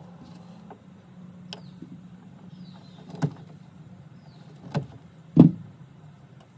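Sharp clicks of side cutters snipping thin charger wires, four of them, the loudest near the end, over a low steady hum.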